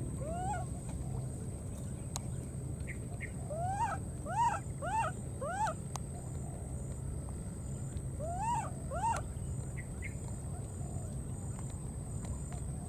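Baby monkey crying with short calls that rise and fall in pitch: one near the start, four in quick succession about four to six seconds in, and two more around eight to nine seconds in, over a steady low rumble.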